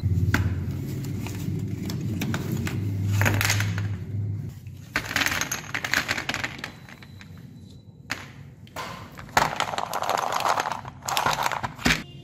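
Sticks of chalk clattering as they are tipped out of a box onto a plastic tray, in several bursts of tumbling and rattling. A low steady hum sits under the first few seconds.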